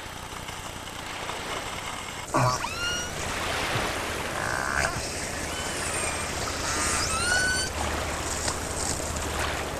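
Killer whales calling underwater: a series of pulsed calls and whistles, several sweeping up in pitch, the first about two seconds in, over a steady underwater hiss.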